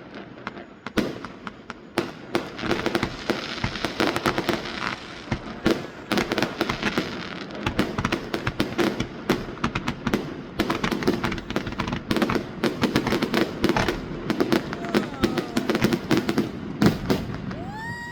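Fireworks going off: a dense run of bangs and crackles that thickens through the middle and later part.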